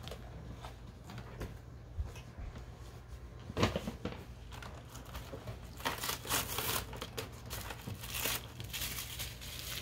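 Crinkly toy-packaging wrappers being handled and torn open by hand: scattered crinkles and rips, one louder rip about three and a half seconds in, growing busier in the second half.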